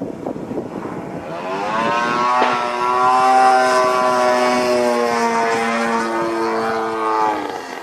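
Gasoline engine and propeller of a Hangar 9 Cap 232 80-inch RC aerobatic plane in flight: a droning tone that comes in about a second and a half in, rising in pitch and loudness, then holding and sagging slightly in pitch before fading near the end.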